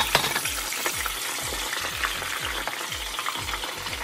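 Pork belly chunks deep-frying in a stainless steel stockpot of hot oil: steady sizzling with sharp crackles and pops, the loudest right at the start.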